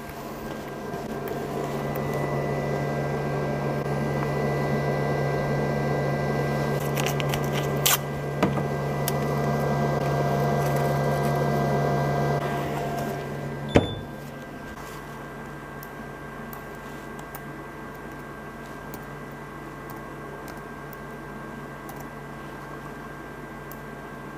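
Steady fan hum with a low drone, louder through the first half, with a few light clicks. A sharp click comes about 14 s in, after which a quieter steady hum goes on.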